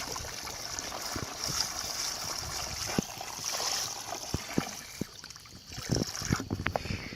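Water running and trickling steadily into a toy rock dam, with a few small clicks and knocks.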